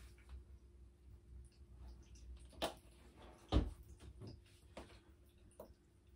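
Faint scattered clicks and small knocks over a low steady hum, the two sharpest knocks about two and a half and three and a half seconds in.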